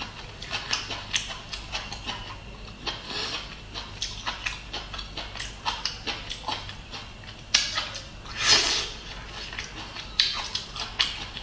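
Close-up chewing of a roasted bamboo shoot: a rapid, irregular run of wet mouth clicks, lip smacks and crunches, louder for about a second around eight seconds in.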